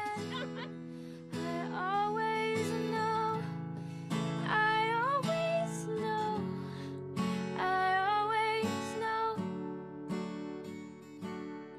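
Acoustic guitar strummed in slow, ringing chords, with a woman's voice carrying a gliding melody over it.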